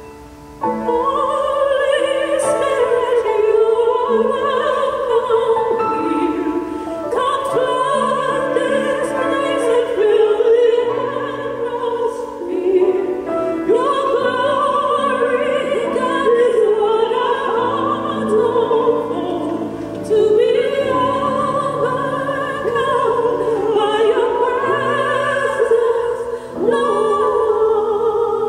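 A group of women singers with instrumental accompaniment singing a sacred song in long, wavering held notes. The music drops briefly at the very start and comes back in about half a second in.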